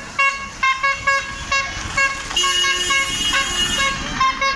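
A horn tooting at one steady pitch in short rhythmic blasts, about two a second, with a longer blast a little past halfway and another near the end.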